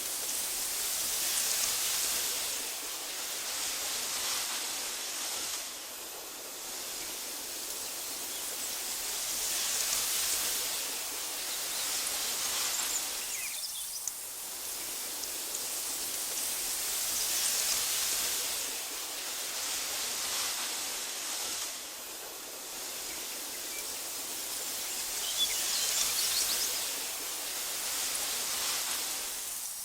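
Wind rustling through tall meadow grass, swelling and easing in slow gusts about every eight seconds, with a few faint high chirps.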